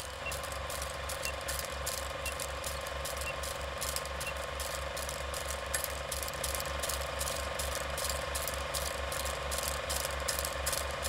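Steady mechanical clicking, about four clicks a second, each with a low thud, over a steady hum. It is a ratcheting machine sound effect.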